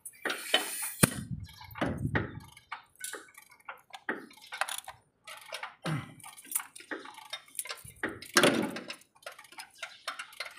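Hand ratchet wrench clicking in short, irregular spurts as a nut on a truck's engine or transmission mount bracket is turned, with a couple of heavier metal knocks, about a second in and near the end.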